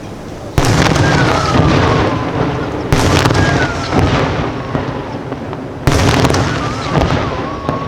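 Aerial fireworks shells bursting: three big booms about three seconds apart with smaller bangs between them, each followed by a long rumbling, crackling decay.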